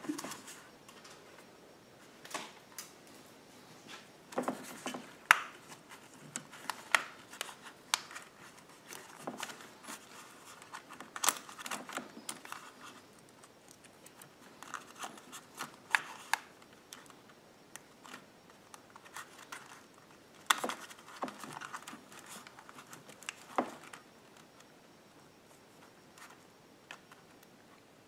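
Nylon zip ties being threaded and pulled around a rubber fuel hose and the wiring harness: scattered clicks and short scratchy rasps of plastic, in irregular clusters with pauses, dying away a few seconds before the end.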